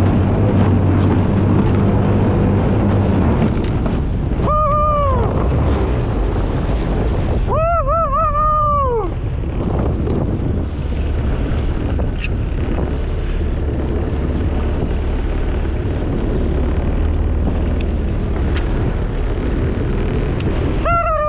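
17 hp jet kayak's engine running under way, with a steady rush of water and wind buffeting the microphone. Two short wavering high-pitched calls cut through, about four and a half and eight seconds in.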